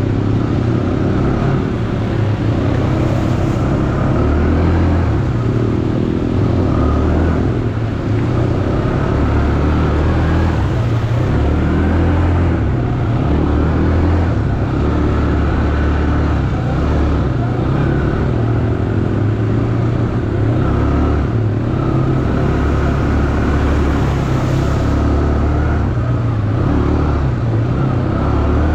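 ATV engine running steadily while being ridden, its pitch stepping up and down with the throttle.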